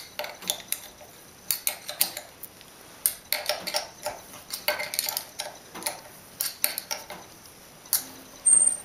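Irregular metallic clicks and clinks, a few a second, of a hand wrench working the knife-clamp bolts in a UKM-300 jointer's cutterhead as the three planer knives are given a light first tightening. A brief high squeak near the end.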